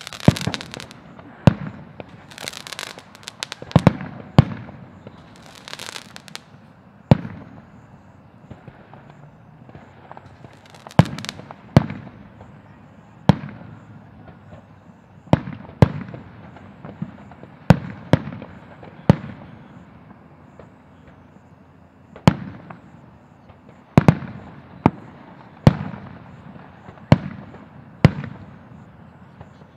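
Aerial firework shells bursting: a sharp bang every second or two, about twenty in all, some followed by a hissing crackle.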